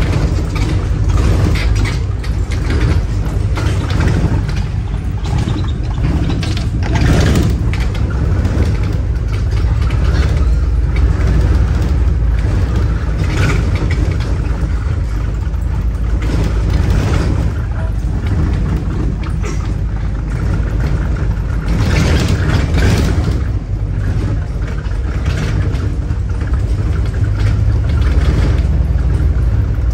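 Inside a moving bus: the steady low rumble of the engine and road, with occasional knocks and rattles of the bodywork over bumps.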